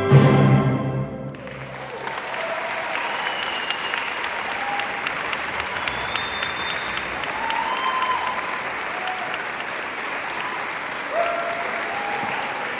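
A symphony orchestra's final chord cuts off about a second in, and audience applause follows, with a few short cheers and whoops over the clapping.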